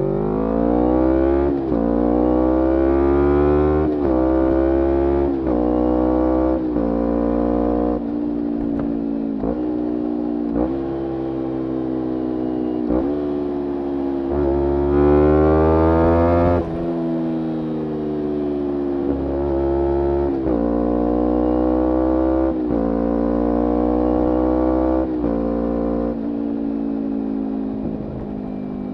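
Kawasaki Ninja 250R's parallel-twin engine through a full Graves racing exhaust, revving up and breaking off again and again as it is ridden through the gears. The loudest, highest run comes about halfway, followed by a falling stretch and then more climbing pulls.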